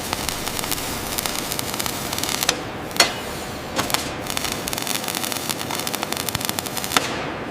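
Dense, steady crackling hiss packed with rapid clicks and pops, with a few sharper, louder pops about two and a half, three and seven seconds in.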